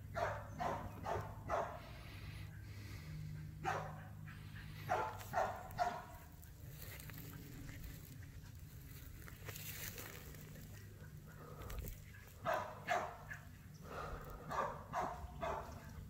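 Faint dog barking: short barks in bunches of a few at a time, with pauses of several seconds between bunches, over a steady low hum.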